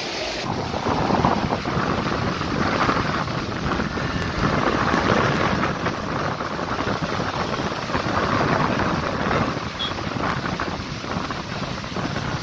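Steady roar of turbulent floodwater rushing downstream from a dam with all ten spillway gates open, with gusts of wind buffeting the microphone.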